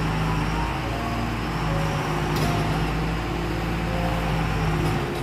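A heavy container truck's diesel engine running as the truck manoeuvres, a steady low rumble, with background music over it.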